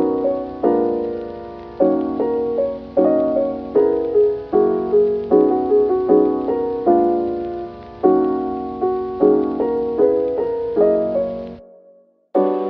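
Background piano music: soft chords struck at an unhurried pace, each fading before the next, with a short break near the end before it starts again.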